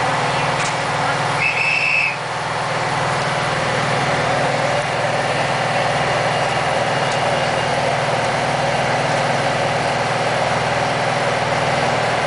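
Class 156 diesel multiple unit's underfloor diesel engine running steadily, heard inside the carriage. A short high beep sounds once, about one and a half seconds in.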